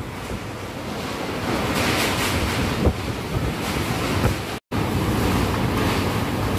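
Typhoon wind blowing hard in gusts, with wind buffeting the microphone. The sound cuts out for a moment about four and a half seconds in.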